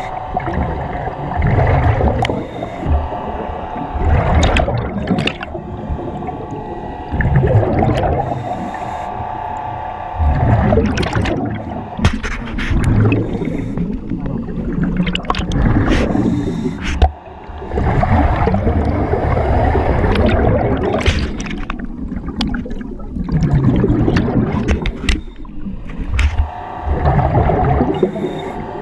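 Diver breathing underwater through a Kirby Morgan surface-supplied diving helmet: the hiss of the demand regulator on each inhale and the bubbling of the exhaust on each exhale, swelling and easing in cycles every few seconds.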